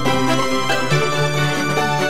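Background music: an instrumental track with a held bass note and shifting melodic notes.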